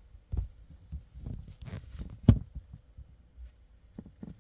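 Scattered rustles and soft knocks in a hamster's paper bedding, with one sharp click a little over two seconds in.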